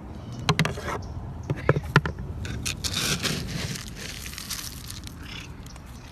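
Plastic lid of a pet-food storage bin being worked open with a few sharp plastic clicks, the loudest about two seconds in, then a plastic scoop digging and rattling through dry kibble.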